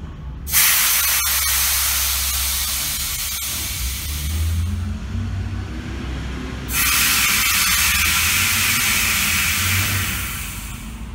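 Air hissing in two long bursts as the floor-framing tables' pneumatic actuators are operated, first raising the rows of upright posts and then lowering them, over a steady low hum.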